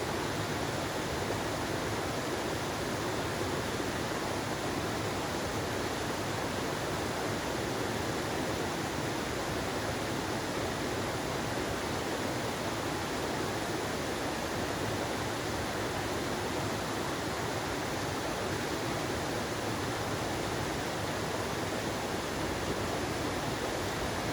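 Stream water flowing, a steady even rush with no breaks.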